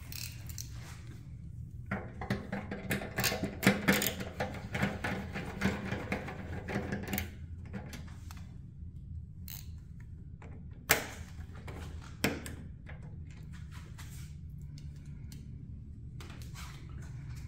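A small hand ratchet with a long hex bit clicking rapidly as it backs out a bolt at the front of a motorcycle's fuel tank. This is followed by two sharp knocks of metal tools.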